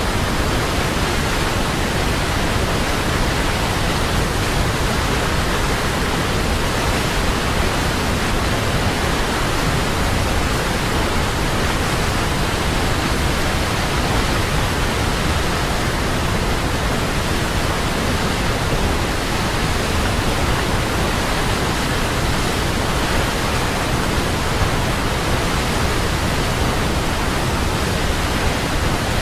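Large waterfall: water falling and crashing in a loud, unbroken rush.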